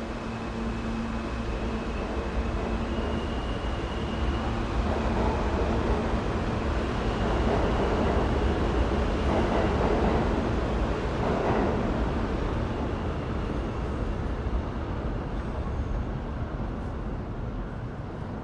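New York subway train rumbling along the tracks, growing louder to about halfway and then fading off, with a faint high whine in the first few seconds.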